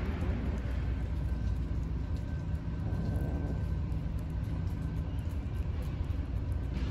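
Steady low rumble, with faint, irregular wet clicks of a cat licking Churu lickable treat paste off a styrofoam board.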